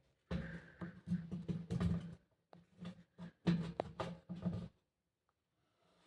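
Close handling noise from the filming phone being repositioned on its bracket: irregular rubbing, knocks and clatter for about four and a half seconds, then it stops.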